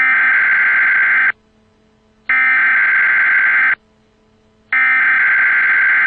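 Emergency Alert System header: three bursts of harsh, buzzing digital data tones, each about a second and a half long with about a second's pause between. This is the coded signal that opens a broadcast emergency alert.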